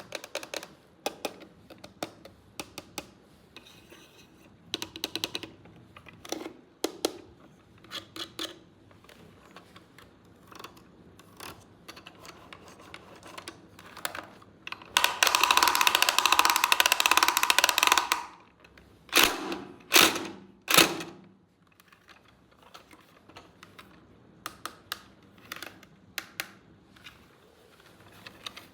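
Toy packaging and plastic parts being handled and opened: scattered light clicks and taps, a dense harsh rustle of packaging for about three seconds around the middle, then two or three loud knocks.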